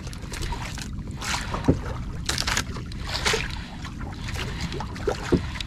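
Sea water washing against the hull of a small outrigger boat, in rushes of hiss about once a second over a steady low rumble.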